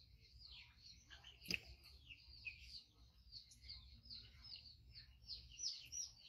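Faint chirping of small birds, many short quick calls overlapping without a break, with a single sharp click about one and a half seconds in.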